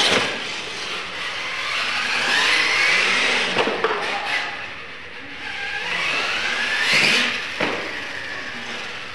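Radio-controlled monster trucks racing: their motors whine, rising in pitch as they speed up and falling away as they slow, twice over, with a few sharp knocks as the trucks land off the ramps.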